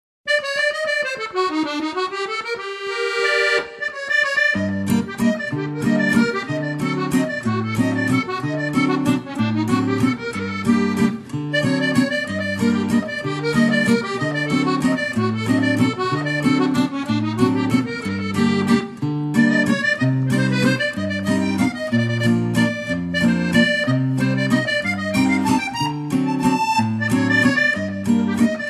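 Bouncy background music led by an accordion-like melody. A sliding note opens it, then a steady bouncing bass line comes in about four seconds in and carries on under the tune.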